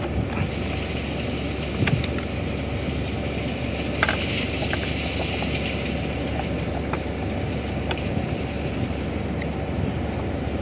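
Steady low background noise, with a few short sharp plastic clicks as a battery is fitted into a Spectra SP85 GNSS receiver and the unit is handled.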